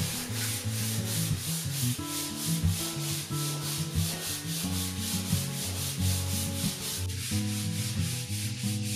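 Hand sanding a cedar strip kayak deck with 100-grit sandpaper: an even rhythm of quick back-and-forth rasping strokes, several a second, working along the grain. This is the final hand sanding that takes out the orbital sander's swirl marks.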